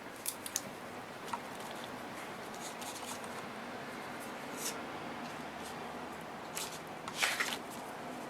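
Small craft-table handling sounds: a few light clicks and taps, and a brief scratchy rustle about seven seconds in, over a steady low room hum.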